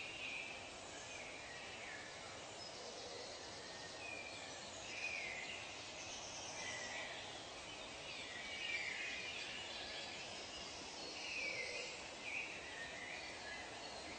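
Nature ambience of many small birds calling over a steady hiss. The calls are short and overlap, several of them falling in pitch.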